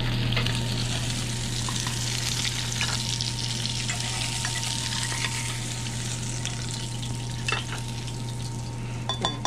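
Coated steelhead pieces sizzling in a hot nonstick frying pan as a spatula lifts them out onto plates, with a few light scrapes and taps of the spatula, over a steady low hum.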